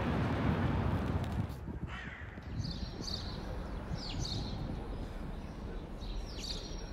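A crow cawing about four times, short harsh calls a second or two apart, over faint city background. Before the calls, a low rumble of wind and traffic stops abruptly about a second and a half in.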